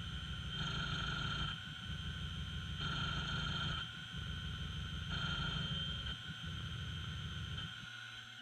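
Small CNC mill's spindle whining steadily while the end mill works the holes in an aluminum bracket along a helical ramp. The machine's sound swells louder for about a second roughly every two seconds.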